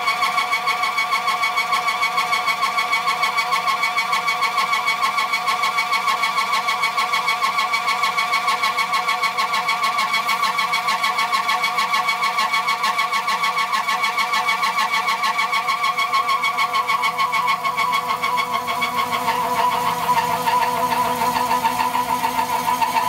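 4-inch, 40-tooth side milling cutter slotting aluminum at 400 RPM on a Tormach PCNC 1100 mill. It makes a loud, steady ringing whine with a fast regular pulsing, and the pitch dips slightly near the end. The noise doesn't sound great: the cutter has clearly perceptible runout, definitely in its flatness and maybe in the arbor.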